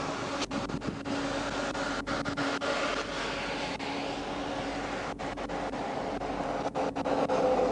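Steady hum of idling vehicle engines with road noise, broken by several very brief gaps in the sound.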